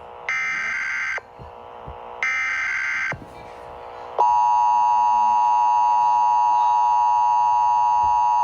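Emergency Alert System broadcast signals: two short buzzy bursts of digital header data, each about a second long, then from about four seconds in the loud, steady, harsh two-tone attention signal.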